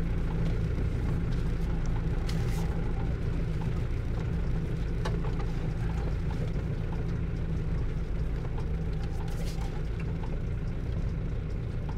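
A car's steady low road rumble of engine and tyres on a dirt road, heard from inside the cabin, with a few faint ticks.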